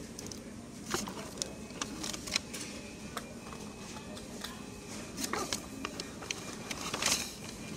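Fast-food restaurant dining-room ambience: a steady background hum with scattered light clicks and paper rustles at the table, such as a straw wrapper and paper bag being handled. The loudest is a brief rustle about seven seconds in, and a faint steady high tone runs through the second half.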